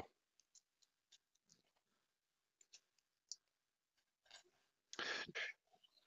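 Near silence, with a few faint clicks as small tools and a note card are handled, and a brief rustle about five seconds in.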